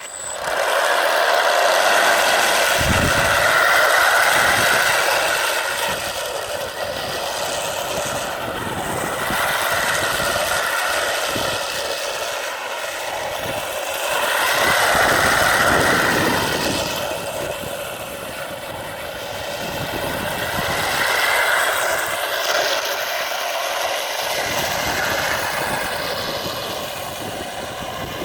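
3D-printed electric RC tank running, its motors, printed gears and tracks whining and rattling. The whine swells and fades over several seconds as the throttle changes.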